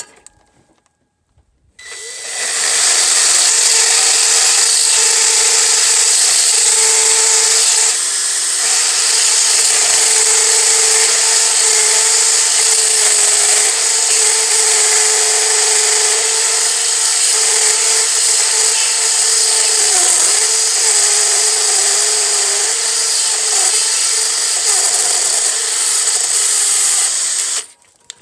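A high-speed handheld power tool, such as a rotary tool or die grinder, machining out the stub of a broken intake manifold bolt in the engine. It starts about two seconds in and runs as a steady high whine whose pitch wavers as it bites, then stops shortly before the end.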